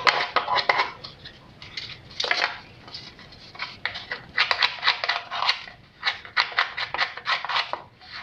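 Filling knife scraping and clicking against a plastic lid while working two-pack filler and hardener, in several bursts of quick short strokes with brief pauses between.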